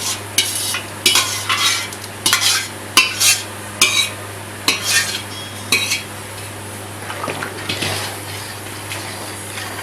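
A spoon stirring and scraping a thick mix of cooked lentils, rice and wheat around a cooking pot, in short irregular strokes; it goes quieter about six seconds in.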